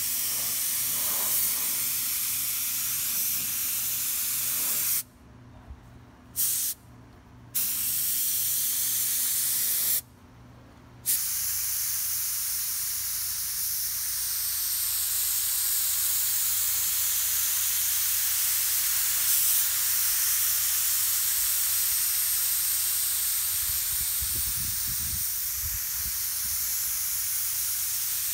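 Compressed-air paint spray gun hissing steadily as it lays red paint on car body panels. The hiss cuts out three times in the first half, for under a second to about a second each.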